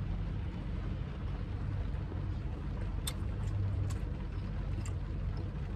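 Steady low rumble of a car cabin in heavy rain, with a few faint sharp clicks about three, four and five seconds in.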